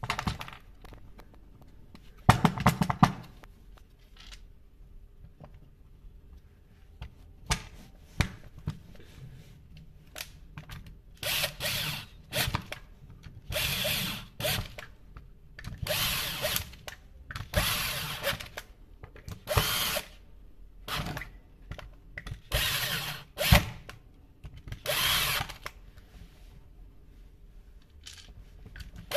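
Power drill driving screws into the plastic housing of an electric chain sharpener, in a run of short bursts, each under a second. A short clatter about two seconds in comes before the driving starts.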